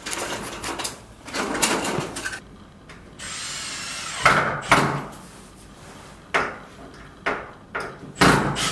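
Installation work on a wooden wall rail: scraping and handling of wood and tools, a short steady power-tool whirr of about a second, then a series of sharp knocks of wood and tools.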